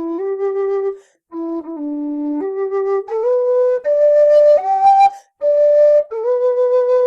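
Setanta metal low D whistle playing a melody, stepping between held notes down to its bottom D, with two short breath breaks about one second and five seconds in.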